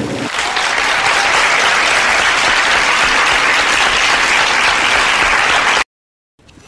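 Audience applause, steady and dense, cutting off abruptly near the end.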